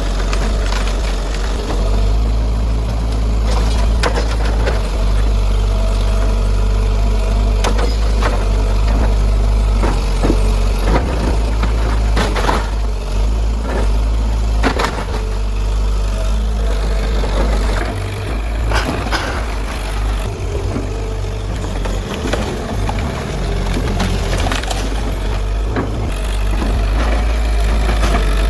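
Kobelco SK100-1 excavator's diesel engine running steadily under load, with irregular knocks and crunches a few seconds apart as it breaks up a house.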